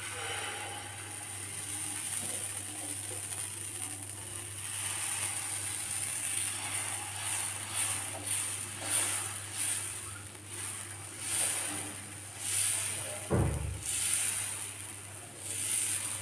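Dosa batter sizzling on a hot tawa while a steel ladle spreads it out in circles, scraping across the pan about once a second. Late on there is a single low thump.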